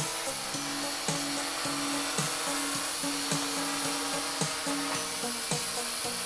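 Blade mQX micro quadcopter's four small motors and propellers whirring steadily with a high whine, under music with a steady beat of about two a second.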